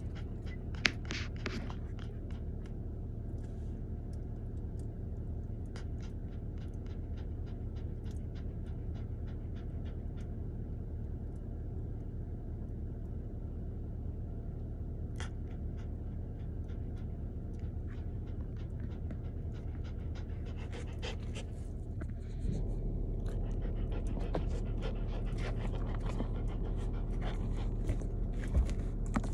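Shiba Inu panting with mouth open, a long run of short breaths, over a steady low car-cabin road rumble that gets louder about three-quarters of the way through.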